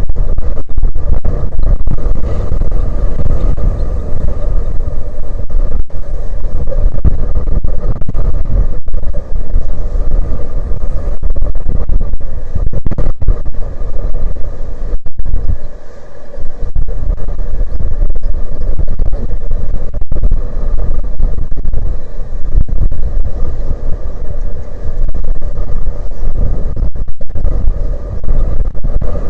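Strong wind buffeting the microphone: a loud, continuous low rumble with many momentary dropouts, and a faint steady hum beneath it.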